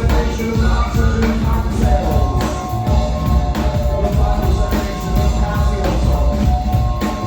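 Live rock band playing, with drums and held keyboard sampler notes. One sampled note slides down in pitch about two seconds in.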